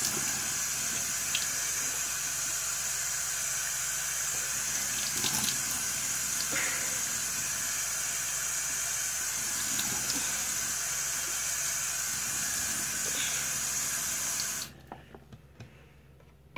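Bathroom sink tap running steadily, with light splashes as water is rinsed onto the face. The flow cuts off suddenly near the end as the tap is shut.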